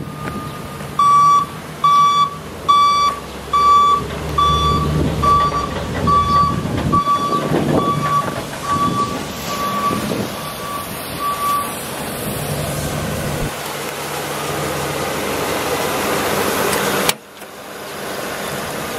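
A vehicle's reversing alarm beeps a little over once a second, about a dozen times, loud at first and fading, then stops. Under it the engine of a Chevy Silverado 3500HD flatbed truck runs as it manoeuvres.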